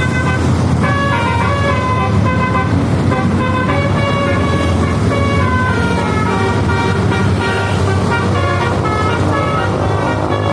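Basuri 'telolet' multi-tone bus horn playing a tune of short stepped notes, over the steady low rumble of the bus engine.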